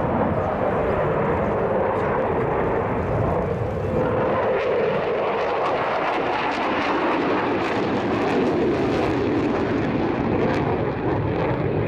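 Jet noise from a McDonnell Douglas F-15 Eagle's twin turbofan engines as it maneuvers overhead with afterburners lit: a steady, loud roar that takes on a crackling edge from about four seconds in.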